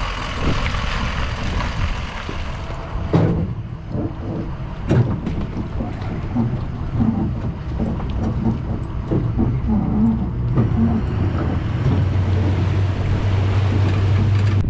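Boat engine running with a steady low hum that grows stronger in the second half, with wind on the microphone and a couple of sharp knocks about three and five seconds in.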